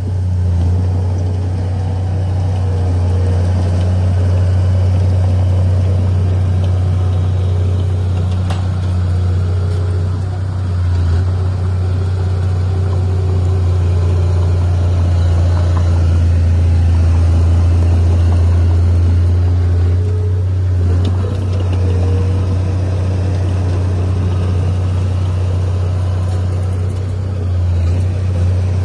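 Heavy diesel engine of earthmoving machinery running, a deep, steady drone with small rises and dips.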